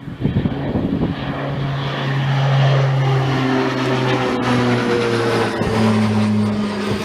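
Propeller aircraft passing close by, its engine and propeller tones sliding slowly down in pitch over a broad rushing noise.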